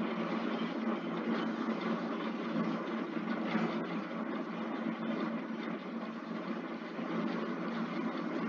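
Steady background hum and hiss with no speech, even throughout.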